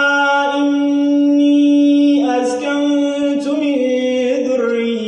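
A male voice reciting the Quran unaccompanied in melodic tajweed style, holding one long note for about two seconds and then winding through ornamented turns of pitch.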